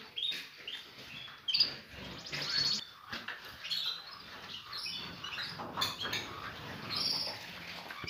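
Many small caged songbirds chirping and twittering together: short, high calls overlapping one another, broken by a few quick trills.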